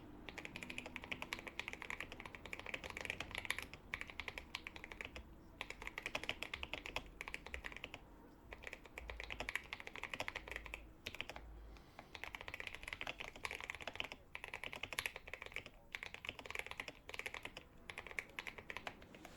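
Fast typing on a GMMK 2 mechanical keyboard fitted with lubed Akko V3 Cream Blue tactile switches, foam- and tape-modded for a creamy sound: a dense stream of keystrokes in runs of a few seconds, with short pauses between.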